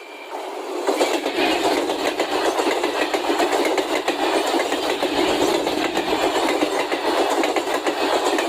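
Train passing at speed, with a dense rush of wheel and rail noise and a rapid run of clicks. It swells over the first second, then holds steady and loud.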